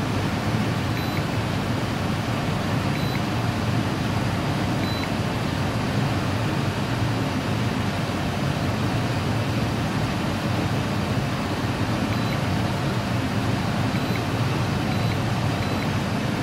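Steady mechanical drone with hiss, unchanging in level and pitch, its weight in a low rumble.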